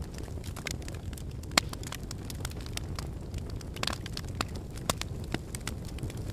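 Fireplace fire crackling: a low, steady rumble of burning with frequent sharp pops and snaps, the loudest about one and a half seconds in, near four seconds and near five seconds.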